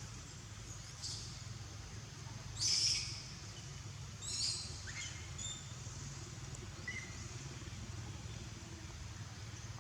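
Several short, high-pitched animal calls or chirps over a steady low background hum, the loudest about three seconds in.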